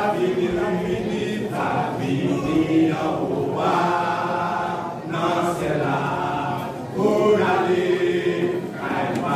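Men's gospel vocal group singing together through microphones, in several sung phrases with brief breaks between them.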